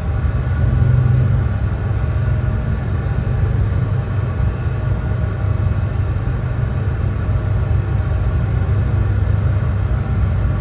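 Brown noise: a steady, deep noise with most of its weight in the low end and little hiss on top, unchanging throughout.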